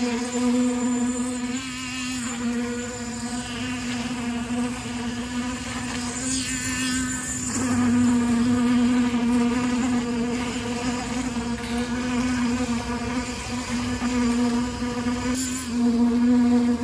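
A small motor running with a steady, high buzzing drone that fades briefly a few times.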